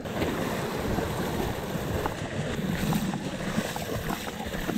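Seawater splashing and rushing close by as a kayak moves through it: a steady wash with a few small splashes.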